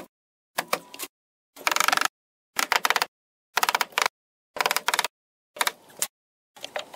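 Short half-second snatches of rapid clicking and clattering work noise, about one a second, each cut off sharply into dead silence: chopped-up, time-lapse-style sound from the construction work.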